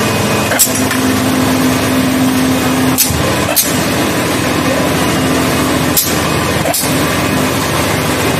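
Steady hum of a motor-driven press machine in a brake-shoe workshop, with five sharp knocks, some coming in pairs a little under a second apart.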